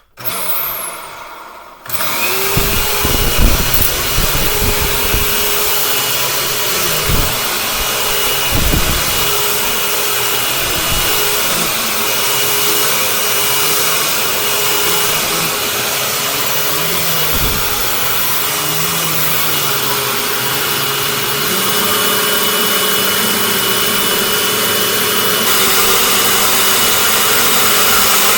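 2011 Dirt Devil Classic vacuum cleaner switched on about two seconds in, its motor spinning up and then running steadily with a high whine over the airflow. Occasional low thumps come through in the first part, and a lower hum joins in past the middle.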